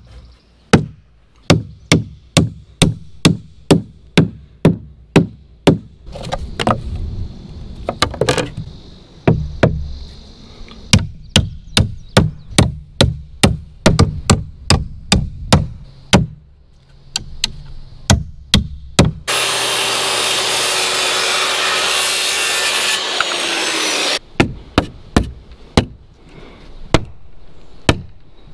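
Claw hammer driving nails into pine 2x4 framing: runs of sharp strikes at about two a second, with short breaks between nails. About two-thirds of the way through, a louder steady noise lasts about five seconds and stops suddenly, then the hammering resumes.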